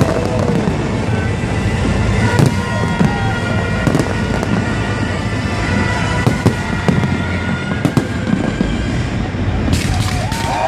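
Fireworks bursting overhead in quick succession: a continuous rumble of explosions with several sharp bangs standing out.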